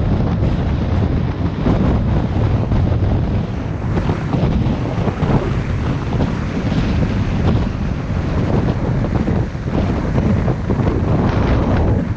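Heavy wind buffeting on a helmet-mounted microphone at downhill skateboarding speed: a loud, steady, rough rush, heaviest in the low end, with no engine note.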